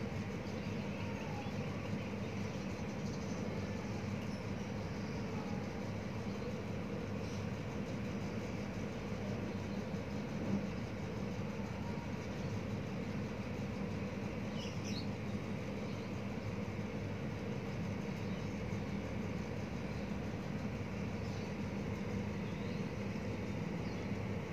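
Battered banana slices frying in hot oil in a wok: a steady sizzle, with a faint low hum underneath.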